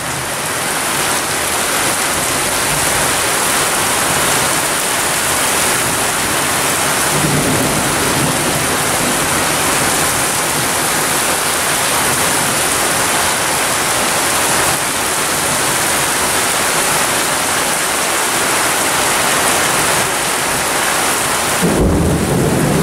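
Heavy rain pouring steadily. Near the end a low rumble of thunder comes in.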